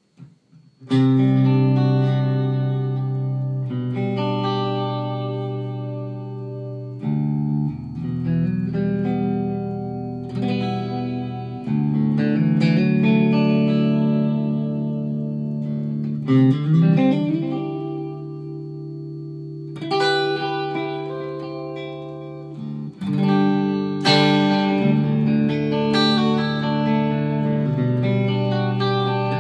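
Electric guitar played through a Simms-Watts PA 100 valve head, rebuilt as a three-channel guitar amp, into a Malmberg 4x12 cabinet: sustained chords ring out and change every second or two, starting suddenly about a second in, with a short run of quicker notes in the middle.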